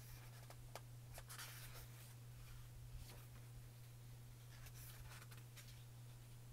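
Faint rustling of paper as the pages of a small booklet are turned by hand, a few soft rustles and ticks, the clearest about a second and a half in and near five seconds. A steady low hum sits under it.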